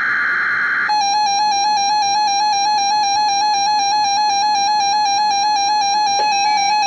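Emergency Alert System alert on weather radio: rapid warbling data-burst tones that stop about a second in, then a steady, piercing electronic attention tone.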